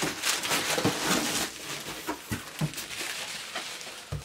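Plastic packaging rustling and crinkling as a box set is drawn out of a bubble-wrap mailer, loudest in the first second or so, with a few soft knocks from handling.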